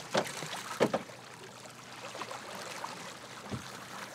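Sea water rushing and sloshing against the hull of an anchored boat in a strong tidal current, an even hiss with a couple of short knocks, the clearest just under a second in.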